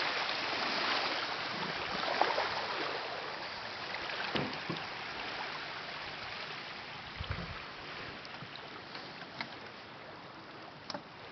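Calm seawater gently lapping in the shallows of a sandy beach, a steady wash that slowly grows fainter, with a few light knocks.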